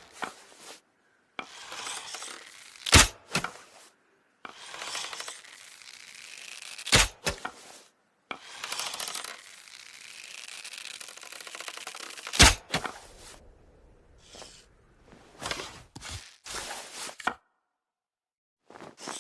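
Bow and arrow shot over and over: a scraping, rustling draw lasting a second or two, then a sharp snap as the string is released. There are three loud snaps about four to five seconds apart, then a few quieter clicks and short rustles near the end.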